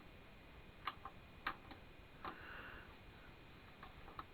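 Faint, scattered clicks of buttons being pressed on a hi-fi stereo unit, a few in the first two seconds and one more near the end.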